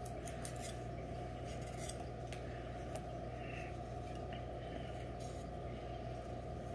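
Kitchen knife shaving small pieces off a raw carrot: faint, crisp little cuts and scrapes at irregular intervals over a steady low hum.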